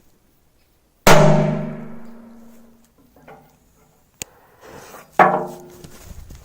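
Two small firecrackers go off against an old metal canister, about four seconds apart; each sharp bang leaves the canister ringing with a fading metallic tone. A short sharp click falls between them.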